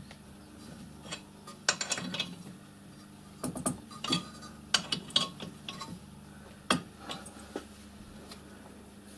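Irregular metallic clinks and knocks as a metal brake hub plate is handled and seated against a lathe's three-jaw chuck, over a faint steady low hum.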